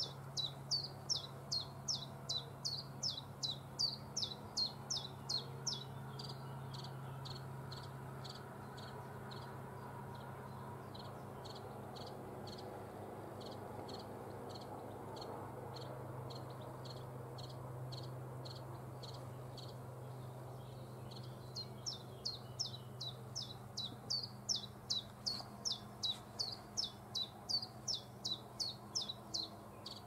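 Common chiffchaff singing: long runs of short, sharp notes repeated evenly at about three a second, fainter through the middle and loud again near the end.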